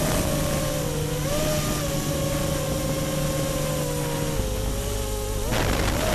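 FPV quadcopter's electric motors whining in flight, the pitch drifting up and down with the throttle. A short surge near the end as the throttle is punched.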